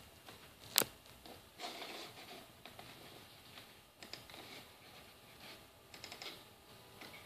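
A few sharp clicks and light rustling. The loudest click comes about a second in, and more follow around four and six seconds in: a computer mouse being clicked to close a window on the PC.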